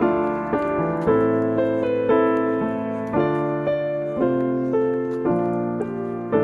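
Background piano music: a gentle keyboard piece of struck chords, a new chord or note about every half second to second, each ringing on as it fades.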